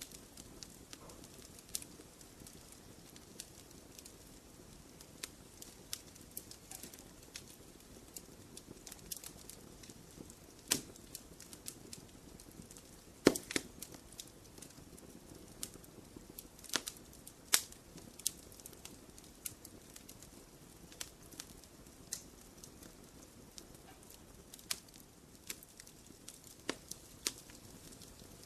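Wood fire burning in a fireplace: a soft low rumble with irregular crackles and pops, the loudest pop about halfway through.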